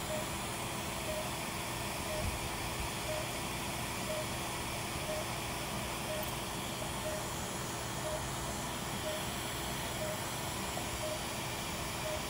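Operating-room patient monitor giving a short, same-pitched pulse beep about once a second, over a steady hiss and low hum of theatre equipment.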